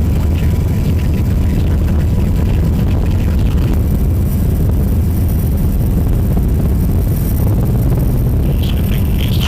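Helicopter engine and rotor noise: a steady, loud low drone that does not change.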